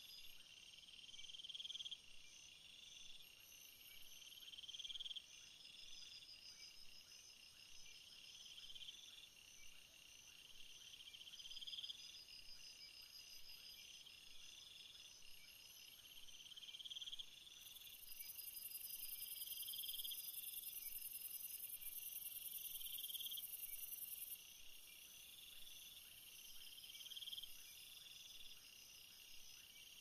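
Chorus of night insects calling together. A rising chirp repeats every second or two, faster pulsed trills sound above it, and a very high steady buzz comes in about 17 seconds in and cuts off about 24 seconds in.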